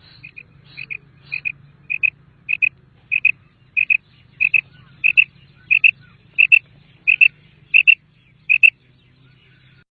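Common quail calling: a steady series of about fourteen short, sharp double notes, roughly three every two seconds, growing louder over the first few seconds and stopping near the end, over a faint low hum.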